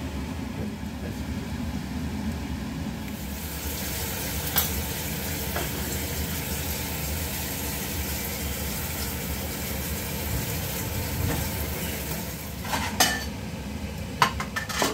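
Pan of parsley sauce sizzling on the hob, then a kitchen tap running into a sink from about three seconds in, with a few knocks of utensils and dishes, and plates clattering near the end.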